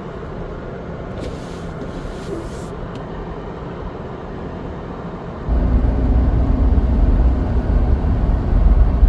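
Truck running, heard from inside the cab: a steady low rumble that suddenly gets much louder and deeper about five and a half seconds in.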